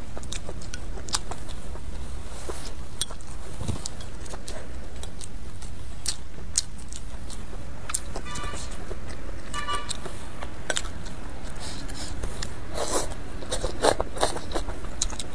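Close-miked eating: chewing and mouth sounds with chopsticks clicking against food and bowl, louder near the end, over a steady low rumble. Two short pitched toots sound about eight and ten seconds in.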